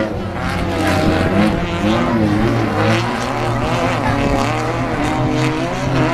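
Off-road race buggy engine revving hard, its pitch climbing and dropping again and again with the throttle as the buggy drives on a dirt track.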